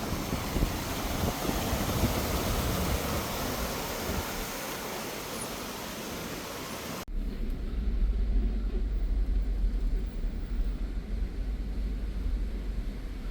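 A steady rushing hiss, then about seven seconds in an abrupt cut to the low, steady rumble of a car driving, heard from inside the cabin.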